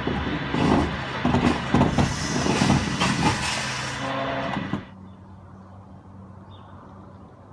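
Tow truck at work: its engine running loud with repeated sharp metallic clanks. It cuts off suddenly about five seconds in, leaving only a quiet steady low hum.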